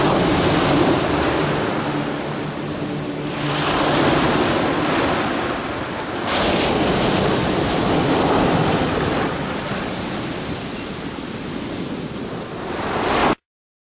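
Ocean surf: small waves breaking and washing up a sandy beach, the rush swelling and ebbing every three to four seconds. It cuts off suddenly near the end.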